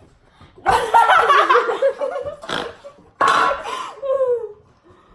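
Girls laughing loudly in outbursts: one long wavering laugh starting about a second in, then a short breathy burst, another loud burst and a falling whoop near the end.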